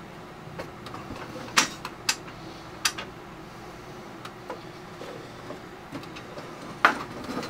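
A few sharp clicks and knocks, the loudest about one and a half, two, three and seven seconds in, over a steady low hum: hands handling the IBM PS/2 Model 25's case and its plug-in cables.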